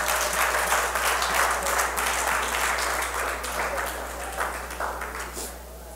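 Church congregation applauding in praise, many hands clapping at once, dying away about five and a half seconds in.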